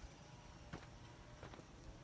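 Near silence outdoors, with a few faint soft ticks.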